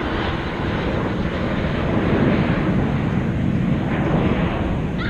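Jet aircraft flying overhead in formation, a steady rushing engine noise that swells about two seconds in, with wind buffeting the microphone.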